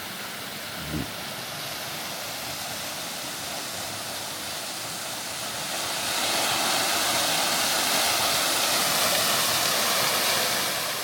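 A waterfall running low on water, giving a steady rush of falling water that grows louder about six seconds in.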